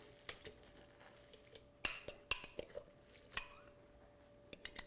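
Glass measuring jug knocking and clinking against a ceramic mixing bowl several times as shredded zucchini is shaken out of it, with a few light clicks.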